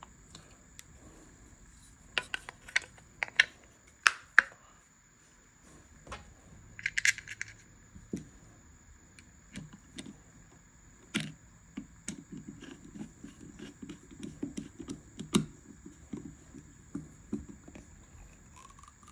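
Metal revolver parts clicking and clinking as they are handled and fitted during reassembly, with a short metallic ring about seven seconds in and softer handling rubs with small clicks in the later part.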